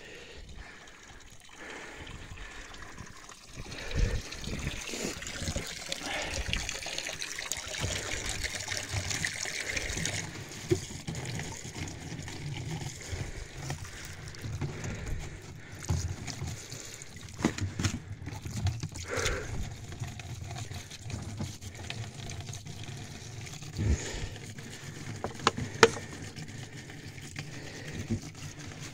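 Water running from a hose into plastic water bottles, a steady trickling pour, with a few sharp knocks as the plastic bottles are handled.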